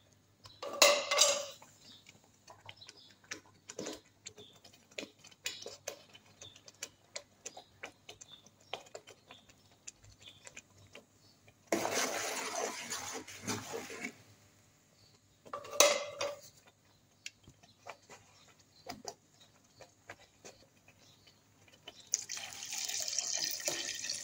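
A spatula stirring and scraping a thick, wet curry in a metal pot: scattered light clicks and scrapes of the utensil against the pot, with several louder bouts of stirring, the longest around the middle and near the end.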